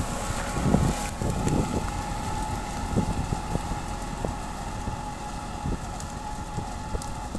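Farmtrac 6080 tractor's diesel engine running steadily under load as it pulls a mouldboard plough through the soil, fading slightly as it moves away, with wind buffeting the microphone.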